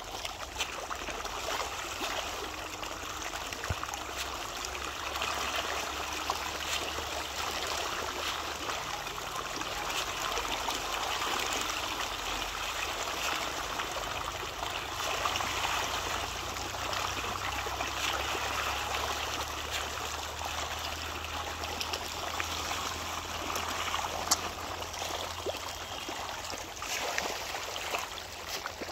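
A dense school of fish thrashing and splashing at the water's surface in a feeding frenzy: a steady churning splash made of many small slaps.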